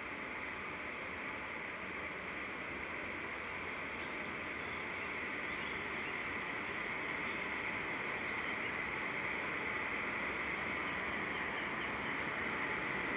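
A train approaching along the track: a steady running noise that slowly grows louder, with small birds chirping now and then.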